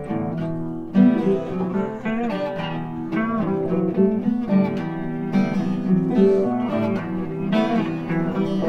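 Background music: acoustic guitar, strummed and picked, playing continuously.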